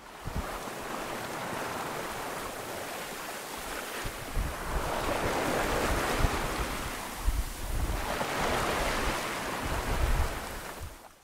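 Sea water rushing and splashing along a sailing boat's hull under way, swelling in surges, with wind buffeting the microphone.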